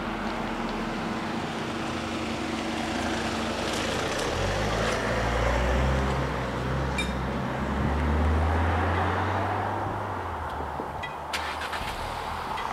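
Car engine running steadily, swelling for several seconds in the middle, with a few sharp clicks near the end as the level-crossing barriers begin to lift.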